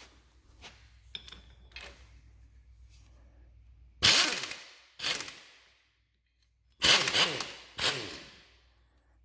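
Four short bursts of a power tool driving a socket, in two pairs about a second apart, spinning off the 3/8 nuts that hold the axles in a Ford 8-inch rear end. Faint clinks of parts being handled come first.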